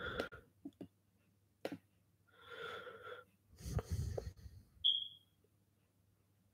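A man breathing close to a microphone: a few separate breathy exhales, one with a low rumble about four seconds in, and a brief high squeak about five seconds in.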